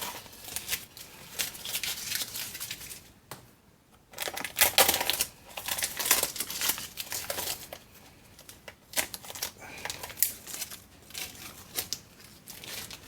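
Masking tape being peeled off freshly painted bench grinder parts and crumpled up, in irregular crinkling, tearing bursts.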